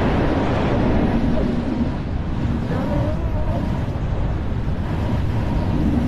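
Loud, steady rush of wind over the microphone of a camera worn by a wingsuit pilot in fast flight.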